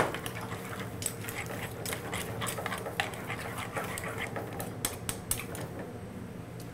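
Seafood in tomato sauce sizzling in a hot sauté pan on a gas burner, with a spoon stirring and clicking against the pan; quick crackles and clicks come through a steady hiss, over a low hum.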